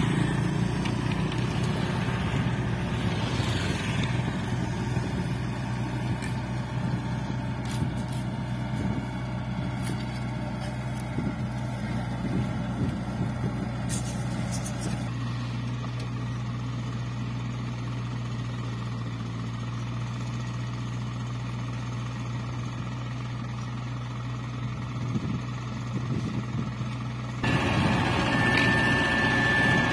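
Diesel engines of a Hanta F1740C mini asphalt finisher and the dump truck feeding it, running with a steady low hum. It gets louder near the end, close to the paver.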